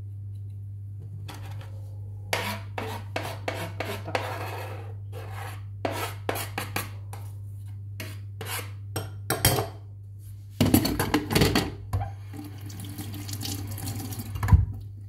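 Knife blade scraping minced garlic across a plastic cutting board in a run of short strokes. Then a longer, louder scrape as the garlic is pushed off the tilted board into a bowl. A single knock near the end.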